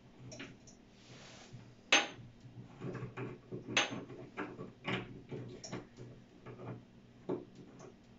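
Clicks and clinks of shower-head fittings being handled and fitted together by hand at the shower arm: a string of small taps, with sharper clacks about two and four seconds in.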